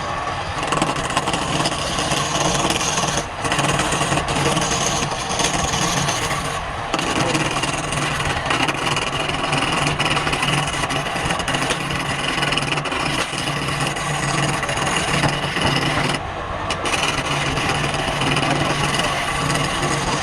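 Wood lathe running while a turning tool cuts into the spinning wood, a continuous scraping over a steady motor hum. The sound drops out briefly three times.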